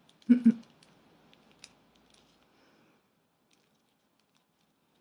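A brief two-note laugh about a third of a second in, followed by faint small clicks and taps of a small gift-wrapped cardboard box being handled, then near silence for the last couple of seconds.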